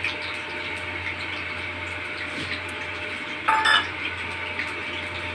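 A steady background hiss with a low hum, and about three and a half seconds in a single short, ringing clink of a stainless-steel dish or utensil being knocked or set down.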